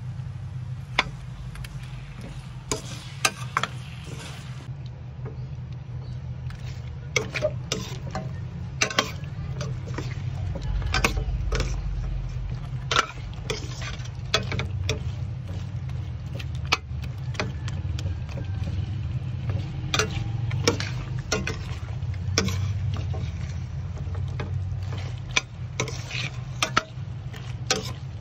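Metal spoon clinking and scraping against a stainless steel pan while stirring chicken in thick ketchup sauce: irregular sharp clinks, several a second at times, over a steady low hum.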